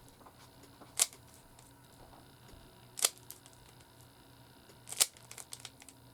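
Three sharp clicks about two seconds apart, the last followed by a quick run of fainter clicks.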